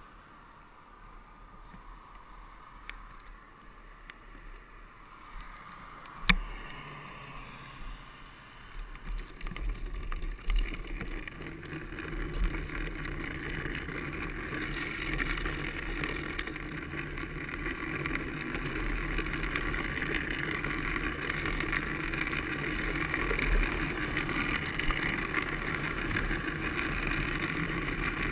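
Drift trike rolling downhill on wet asphalt: a steady rushing of wheels on the wet road and wind going past, quiet at first, then building up from about eight seconds in and staying louder. A single sharp knock about six seconds in.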